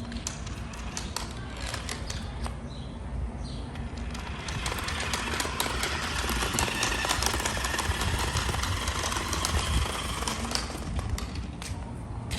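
Plastic toys being handled, with many small clicks and knocks, and a louder rushing, rattling noise from about four to eleven seconds in.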